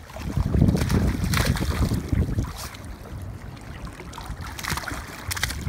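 Wind buffeting the microphone in gusts, heaviest in the first couple of seconds, with water splashing several times as small dogs wade through a shallow river.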